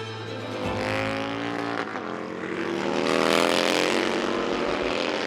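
Racing motorcycle engine running at high revs on track, its pitch climbing as it accelerates.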